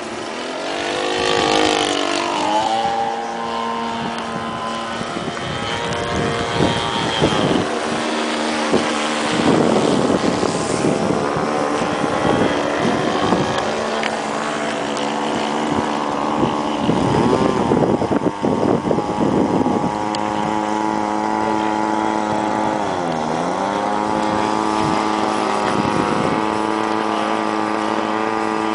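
A 52cc single-cylinder two-stroke gas engine and propeller of a large RC Edge 540 aerobatic plane in flight, running steadily, its pitch rising and falling with the throttle through manoeuvres. A few seconds before the end the pitch dips sharply and climbs back.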